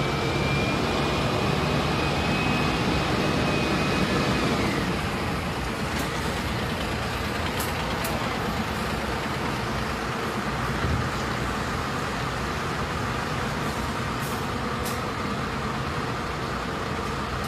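Heavy lorry running at low speed, a steady engine and road noise, with a thin high whine over the first few seconds. A few short sharp clicks come later.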